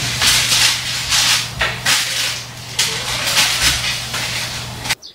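Steak and sausages sizzling on a foil-lined grill pan, the hiss swelling and easing again and again as they are turned with tongs, over a low steady hum. It cuts off sharply near the end.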